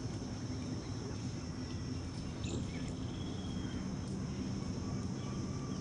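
Outdoor ambience of insects trilling steadily in a high pitch, over a low steady hum, with a few faint short chirps near the middle.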